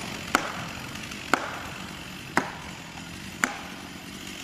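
Hammer blows driving a felling wedge into the back cut of a tree, sharp ringing strikes at a steady pace of about one a second, to tip the tree over.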